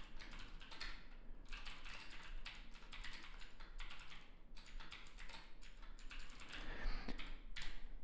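Computer keyboard typing: a quick run of key clicks with a few brief pauses.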